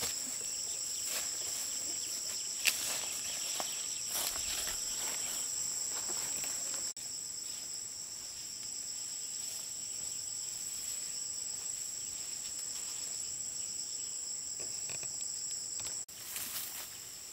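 Steady high-pitched insect chorus, holding two even tones without a break, with a few short clicks or rustles nearer the microphone. The chorus drops out for an instant twice, about 7 seconds in and near the end.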